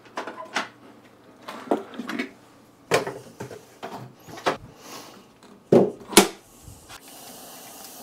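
Handling knocks and clunks as a portable power station is lifted and set down on a plastic crate, a series of short hits with the two loudest close together about six seconds in.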